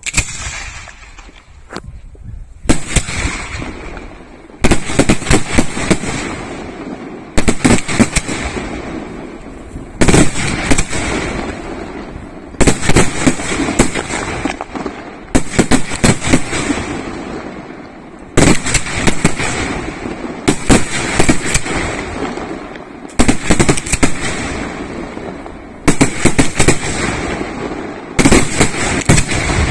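Aerial firework shells bursting in a display. A cluster of sharp bangs comes about every two to three seconds, each dying away before the next salvo.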